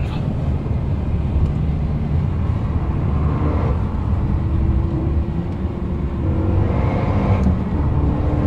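Renault Mégane RS 265's turbocharged 2.0-litre four-cylinder engine pulling hard with road noise, heard from inside the cabin while driving at speed. The engine note shifts in pitch a few times.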